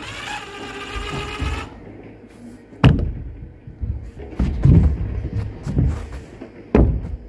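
Cordless drill driving a screw into plywood roof sheathing, whining steadily for about a second and a half. Several sharp knocks and low thuds follow on the wooden deck, the loudest about three seconds in and another near the end.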